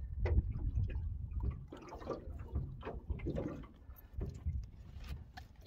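Wet splashing with irregular knocks and clicks as a freshly netted mulloway is unhooked, over a low rumble.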